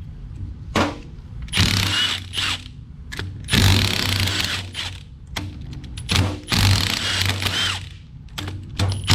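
A socket ratchet clicks in repeated strokes on the case of a TrueTrac limited-slip differential being taken apart, in bursts about a second long with short pauses between them.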